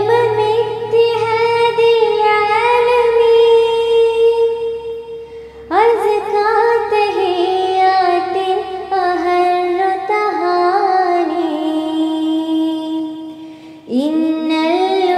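A female voice chants an Arabic poem in long, drawn-out melodic phrases, gliding between held notes. New phrases begin about six seconds in and again near the end.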